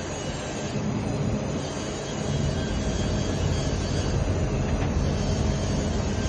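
Steady low rumble of running machinery, with a droning hum underneath that rises slightly in level a couple of seconds in.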